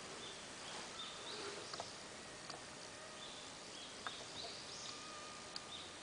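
Forest birds calling: short, high chirps about twice a second over a steady background hiss, with a few faint ticks.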